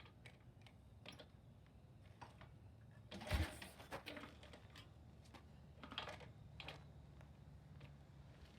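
Faint clicking and clanking, with one heavier thump about three seconds in, as the newly fitted kick starter on a Harley-Davidson Ironhead Sportster is stomped. The engine does not fire, because the ignition key is off.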